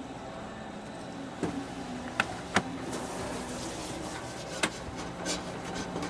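Kitchen background hum with a few sharp clinks and knocks of utensils on stainless steel, the two loudest close together about two seconds in and another near the end.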